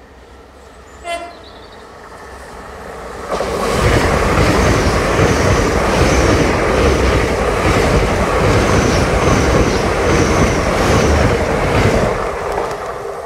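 A Great Western Railway Hitachi Intercity Express Train gives one short horn blast about a second in as it nears a footpath level crossing. It then rushes past close by at speed, loud wheel-on-rail noise for about eight seconds, and fades away near the end.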